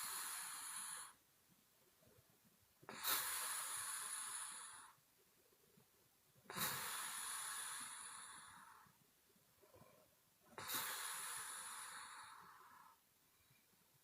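A sleeping woman snoring on the exhale: long, breathy blows out through the mouth, each starting sharply and fading over about two seconds. Four come at an even pace, about one every four seconds.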